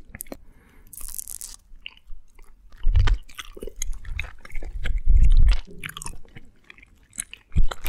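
Close-miked chewing and biting of candy, with many small wet mouth clicks. A brief hiss comes about a second in, and low thumps come about three and five seconds in and again near the end.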